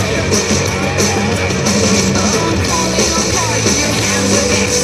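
Loud rock-style music with guitar, playing steadily without a break.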